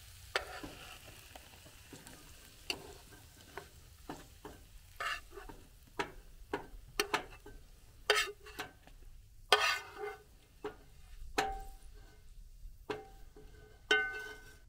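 Slotted metal spatula scraping and clinking against a non-stick frying pan as fried peppers, onions and sausage are pushed off onto a plate: irregular scrapes and taps, some with a short metallic ring, the loudest about halfway through and near the end.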